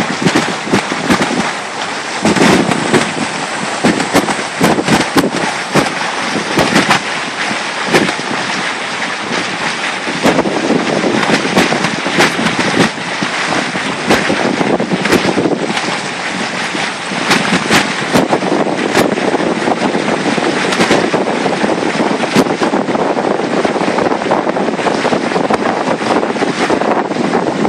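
Wind buffeting a phone's microphone aboard a moving boat: a loud, steady rushing noise broken by many sharp crackles and pops.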